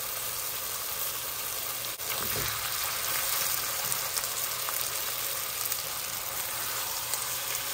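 Ground sausage meat sizzling steadily as it browns in an enameled cast-iron pot, with a wooden spoon stirring it in the second half.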